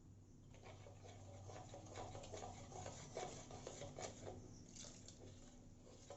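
Faint scraping and light tapping of a spoon in a bowl, stirring maida into a besan batter.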